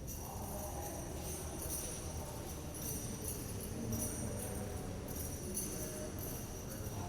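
Designed prison ambience: a steady low rumble with scattered light high-pitched clinks and jingles over it, like distant metal in an echoing institutional space.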